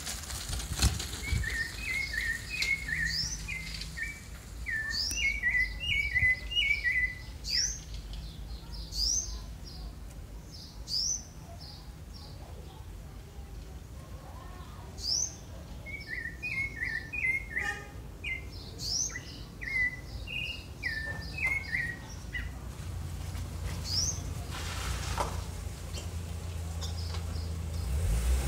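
Rufous-bellied thrush (sabiá-laranjeira) singing two bouts of quick warbled phrases, with short high rising chirps repeated every second or two throughout.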